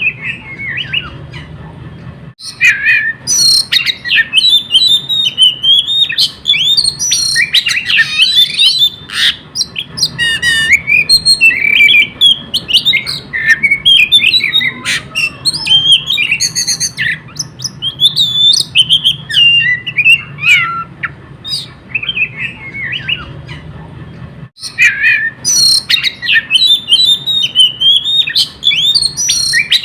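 Oriental magpie-robin (kacer) singing a long, unbroken, rambling song of quick, varied chirps, whistles and harsh notes, full of mimicked calls.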